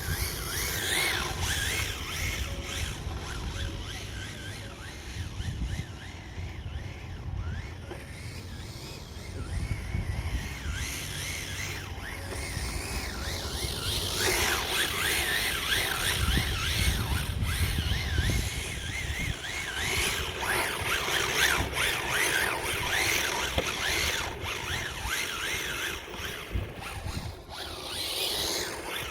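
Radio-controlled car driving, its drive whining up and down in pitch as the throttle comes on and off, louder from about halfway through. A low rumble of wind on the microphone runs underneath.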